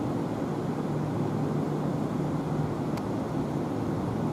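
Kintetsu 12200 series electric train running slowly in the distance, a steady low rumble with a faint hum. A single sharp click about three seconds in.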